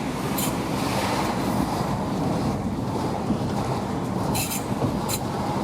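2008 Honda CR-V driving, with steady road and tyre noise and three short, high-pitched scraping bursts, about half a second in and twice near the end. The scraping is a rear brake pad worn down to metal grinding on the rotor.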